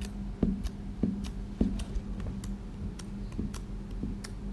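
Light, regular ticking, about three ticks a second, over a steady low hum, with a few soft knocks in between.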